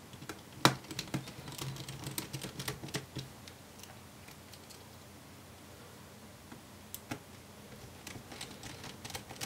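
Small screwdriver driving a laptop's battery retaining screws into the chassis: a sharp click about half a second in, then a run of light ticks and taps for a couple of seconds, a quiet stretch, and more scattered ticks near the end.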